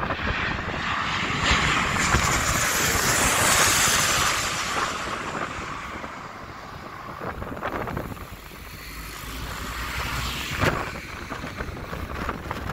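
Twin-engine jet airliner passing low overhead on final approach to land. Its engine roar builds to a peak a few seconds in, fades as it goes over, then swells again more weakly near the end.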